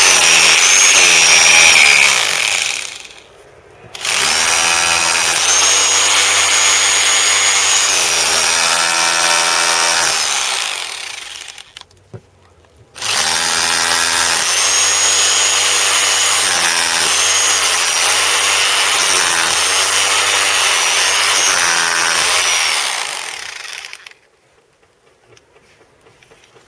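Bosch GBH 2000 2 kg hammer drill hammering its carbide bit into the mortar joint around a brick. It runs in three bursts, a short one and then two longer runs of several seconds each, with the motor pitch rising and falling under load.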